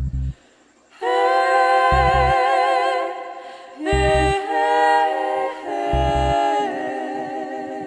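Music: layered voices singing long held notes with vibrato, over a low double thump about every two seconds.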